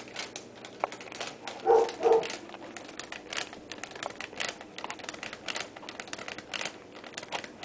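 Foil potato chip bag crinkling and crackling in irregular bursts as a kitten moves with its head stuck inside it, with two short vocal sounds close together about two seconds in.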